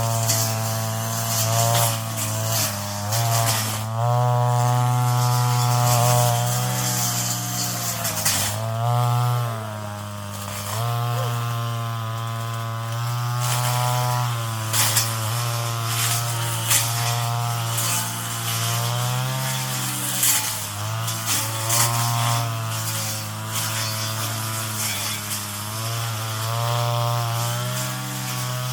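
Two-stroke brush cutter engine running at high revs, its pitch dipping and recovering again and again as the cutting head takes load in the weeds.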